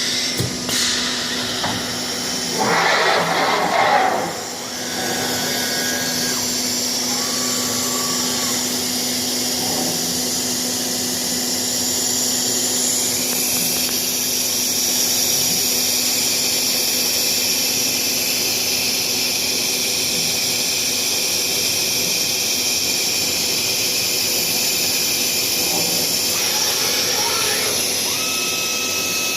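A Biesse Rover C 6.50 five-axis wood CNC machining centre running, its electric spindle giving a steady high whine. A louder burst of noise comes about three seconds in.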